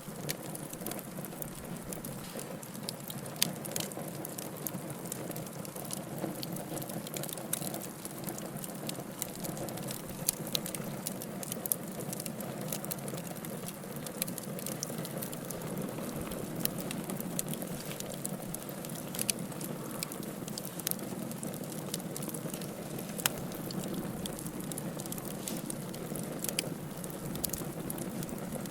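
Wood fire burning in a fireplace: a steady hiss and rustle with irregular sharp crackles and pops.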